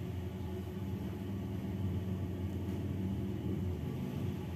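Steady low background rumble with a faint, even hum.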